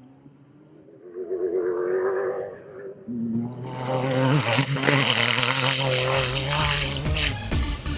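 Off-road race truck's engine running at high revs, a distant wavering buzz at first that grows loud about three seconds in as the truck passes close by.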